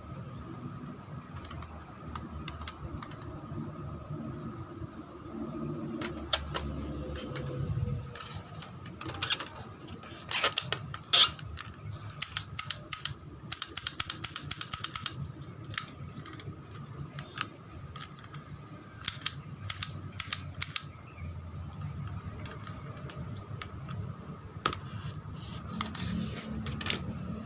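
Scattered sharp plastic clicks and clacks from handling a spring-powered airsoft pistol, a Tokyo Marui HK USP, some of them in quick runs, over a steady background hum.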